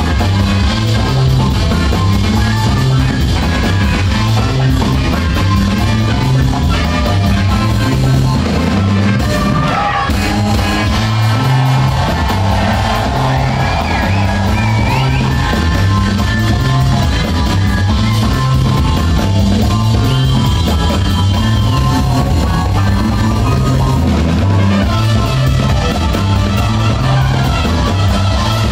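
Live jazz band playing loudly, with drums keeping time over a repeating bass line.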